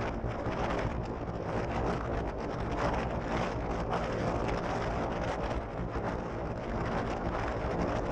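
Polaris RZR side-by-side engine running at a steady pace while driving across sand, with wind rushing over the microphone.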